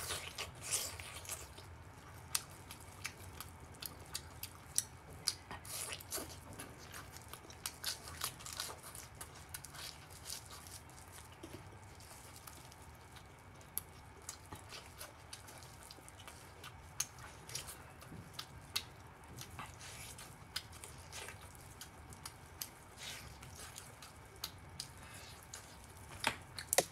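Close-miked eating of soft-braised trotters: wet biting, chewing and mouth-smacking, with a string of short sharp clicks scattered throughout.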